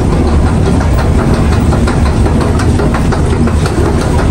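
Steady low mechanical rumble of an escalator and station machinery running, with scattered light clicks and taps over it.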